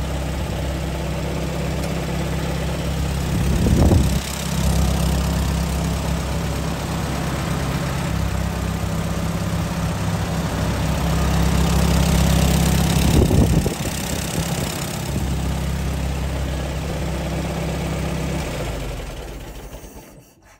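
Allis-Chalmers WD45 tractor engine idling steadily, swelling louder twice, about 4 and 13 seconds in, then fading out near the end.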